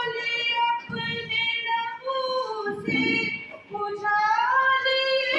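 A girl singing solo into a microphone, holding long notes and sliding up between pitches.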